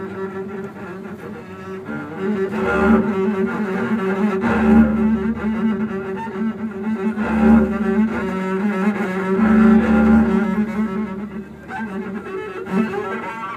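Solo double bass played with the bow: long held low notes that swell louder several times and then ease off near the end.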